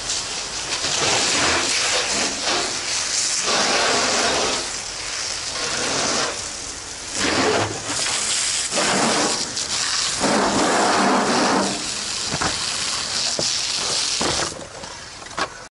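Fire hose water stream spraying onto burning shed debris: a steady rushing hiss, with several louder surges as the jet plays over the fire. The sound drops away about a second before the end.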